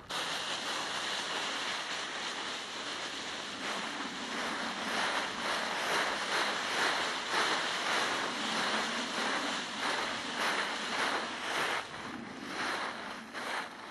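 Dry fallen leaves rustling and crunching under dogs' paws and a walker's feet, a dense continuous crackle that eases off a little near the end.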